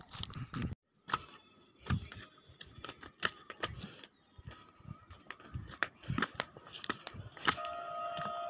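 Irregular footsteps and knocks of phone handling as someone walks over a stone path. Near the end a faint steady tone comes in.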